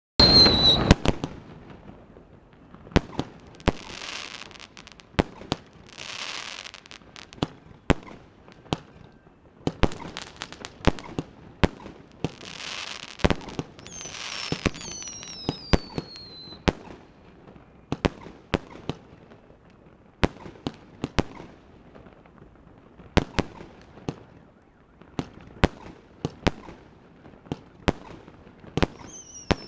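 Aerial fireworks bursting in an irregular string of sharp bangs. Some bursts are followed by about a second of crackling hiss. Whistles falling in pitch come in the middle and again near the end.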